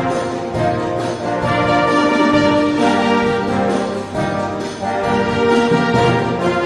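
Slow brass music playing held chords that change every second or so.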